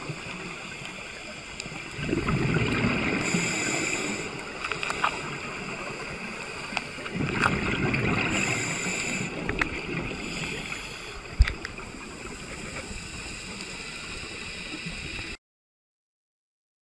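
Underwater sound through a dive camera's housing: a steady watery hiss with rushes of scuba exhaust bubbles from divers' regulators, two of them loud and lasting a couple of seconds each, and a sharp click about two-thirds of the way through. The sound cuts off abruptly near the end.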